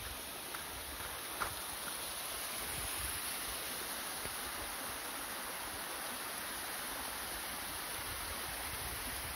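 A small mountain waterfall rushing steadily down a rocky slope, with an uneven low wind rumble on the microphone and one short click about a second and a half in.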